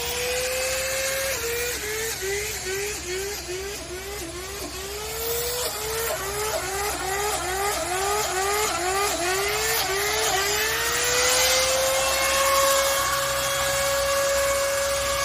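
High-speed electric drill drilling spawn holes in an oak log. Its motor pitch dips and recovers about three times a second as the bit bites into the wood, in two runs with a short steady stretch between them. After that it runs free at a steady high pitch.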